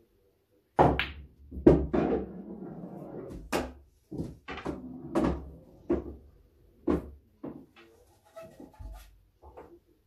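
Pool shot on a small 6 ft table: the cue tip strikes the cue ball, a sharp click of ball on ball, and the balls roll across the cloth. After that comes a string of hard knocks and thuds as the potted ball drops into a pocket and knocks around inside the table.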